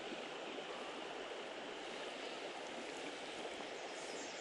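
Steady rush of a shallow creek's water flowing.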